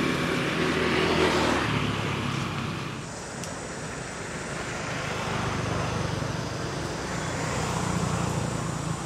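Motor vehicle engines passing by, their hum swelling and fading several times, with a faint steady high whine from about three seconds in.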